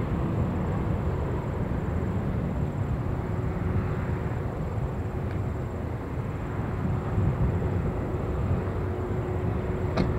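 Boeing 777-300ER jet engines running with a steady low rumble and a thin steady hum.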